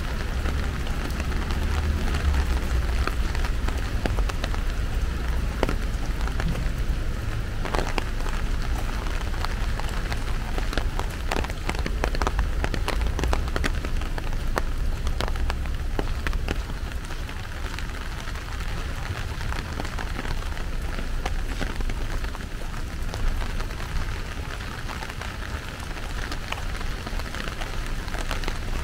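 Steady, fairly heavy rain falling, with many individual drops ticking close by over a low rumble.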